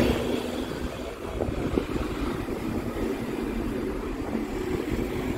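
City street ambience: a steady low rumble of road traffic, with a brief click about two seconds in.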